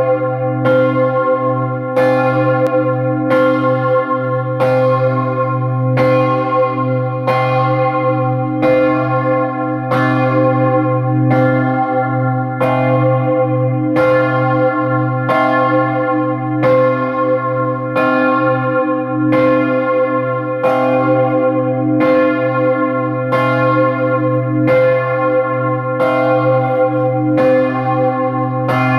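The historic great bell (campanone) of the Palazzo dei Vicari, rung by hand with a rope and heard close up from inside the belfry. It strikes steadily about once a second, each stroke ringing on into the next over a deep, continuous hum.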